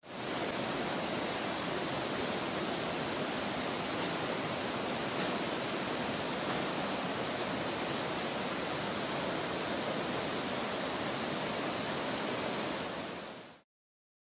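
Steady rush of a mountain river and waterfall in flood, swollen with muddy water after heavy rain, pouring over rocks and boulders. It fades out near the end.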